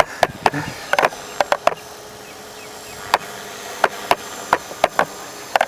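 Irregular clicks and knocks of hands handling a camera on a tripod, close to the microphone, with a faint steady hum in the background.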